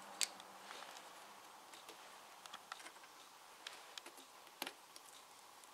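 Faint, irregular metallic clicks and ticks of a hand tool in the threaded screw plugs of an 8-valve camshaft housing as they are loosened, with a sharper click just after the start and another about three-quarters through.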